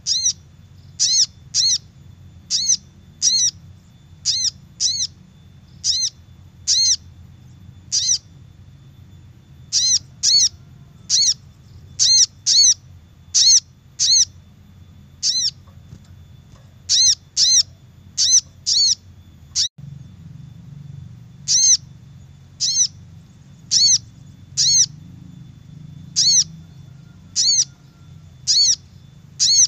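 Little spiderhunter (sogok ontong) calling: short, sharp high chips, each quickly rising and falling in pitch, repeated about once or twice a second and often in pairs. This is the bird's call played as a lure to draw wild spiderhunters in. A faint low hum runs underneath, with a brief break about two-thirds of the way through.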